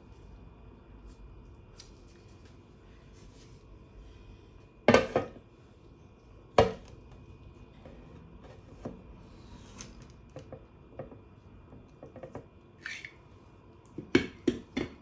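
Spring-loaded plastic plunger mould knocking and clicking against the bowl and tray as damp shower-steamer powder is packed in and a tablet is pressed out: two sharp knocks about five and six and a half seconds in, a quick cluster of clicks near the end, and soft scraping of the powder in between.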